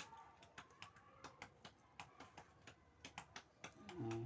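Faint, irregular small clicks and ticks of a meal being eaten, with a short voice sound near the end.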